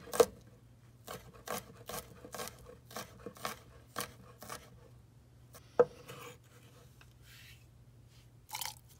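Chef's knife chopping garlic cloves on a wooden cutting board, about two crisp chops a second for the first four and a half seconds. Then comes a single louder knock, followed by the knife blade scraping the minced garlic across the board.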